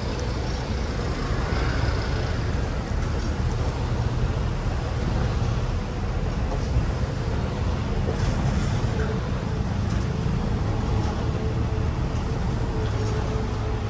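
Steady low rumble of a moving double-decker bus heard from its upper deck: engine and road noise mixed with passing traffic, with a faint steady hum throughout.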